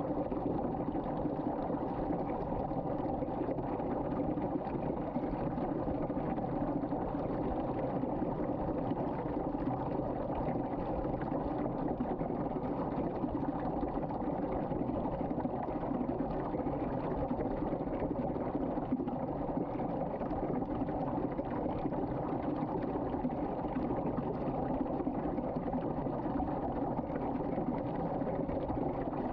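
Water swirling in a whirlpool down a sink drain, a steady, even rush of water.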